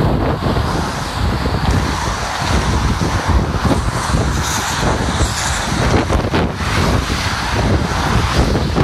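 Strong wind buffeting a phone's microphone in a steady rumbling roar, with road traffic passing in the lanes alongside.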